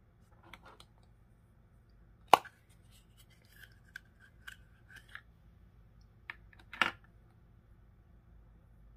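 Plastic clicks and snaps from hands handling a plastic surprise-egg capsule and small toy figurines. A few light clicks, one sharp snap about two seconds in, a run of lighter clicks, then two more snaps near the end.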